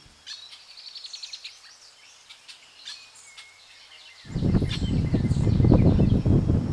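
Small birds chirping in quick high trills. About four seconds in, loud wind buffeting the microphone begins as a rough low rumble that covers the rest.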